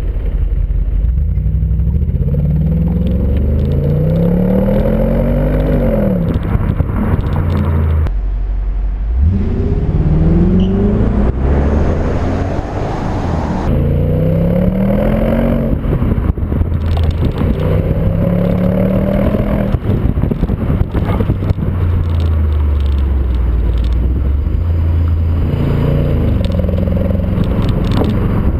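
Audi RS6's 4.2-litre twin-turbo V8 and exhaust under acceleration on the move. The engine note rises in pitch and falls back again five or six times, with a short dip about eight seconds in.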